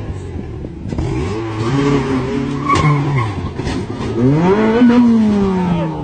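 Rally car's engine revving hard as it passes at speed, its pitch rising and falling twice, with a single sharp crack a little under three seconds in, as the car goes off the road into the field.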